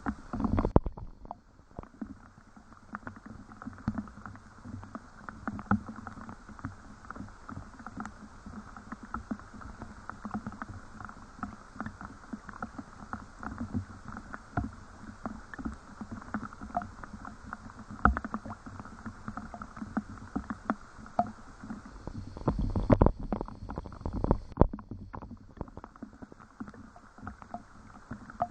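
Rain falling, with many irregular drops ticking and dripping close by. A stronger low rumble swells for a few seconds near the end.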